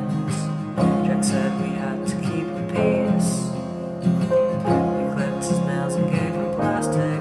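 Instrumental music without vocals: sustained chords, struck afresh every second or two.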